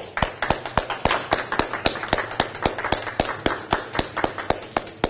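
Hand clapping: sharp, regular claps about four a second, with softer clapping between them.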